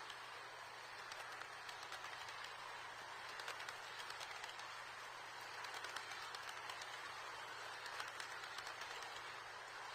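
HO-gauge model freight train headed by an EF64 locomotive running on the track: a steady whir with many light, irregular clicks.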